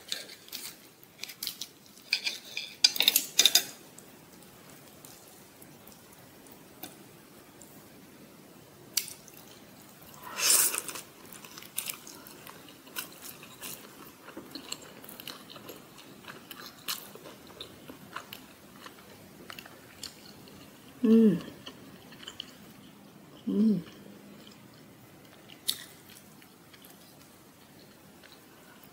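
Knife and fork clicking and scraping on a plate while cutting a tortilla pizza, with chewing and crunching of the crisp crust between bites. Clicks cluster in the first few seconds; two brief low sounds falling in pitch come in the second half.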